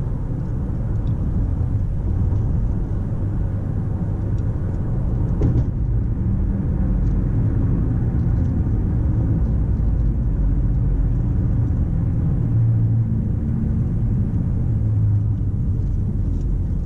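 Steady low rumble of road and engine noise inside a moving car's cabin, with a faint knock about five and a half seconds in.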